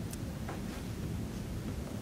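Quiet room tone: a low steady hiss with a couple of faint soft handling ticks near the start.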